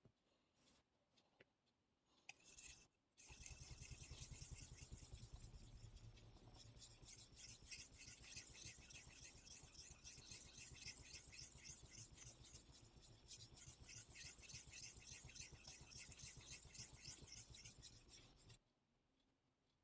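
Gyuto kitchen-knife blade scraped rapidly back and forth on a whetstone, a steady gritty scraping made of quick repeated strokes. It starts about three seconds in and stops abruptly near the end.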